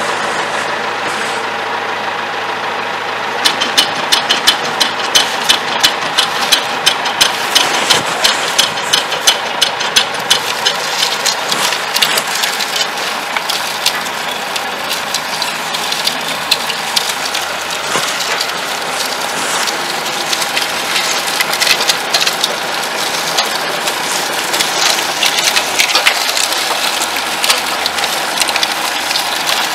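Tractor engine running steadily, driving a vertical-roller sugarcane mill. From about three and a half seconds in, sharp clacks come two to three a second as the mill turns and cane stalks are fed through the rollers to be crushed for juice, thinning out midway and picking up again near the end.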